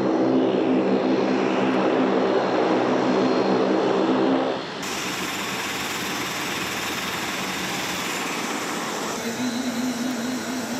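Bombardier Dash 8 Q400's Pratt & Whitney PW150A turboprops running as it taxis: a loud propeller drone with several steady tones. A little under halfway through it cuts off abruptly to a quieter, even outdoor noise.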